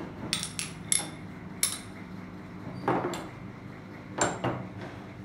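Small steel hand tools clinking and knocking against each other and a hard surface as they are picked up and set down, about eight sharp metallic clinks, a few in quick pairs.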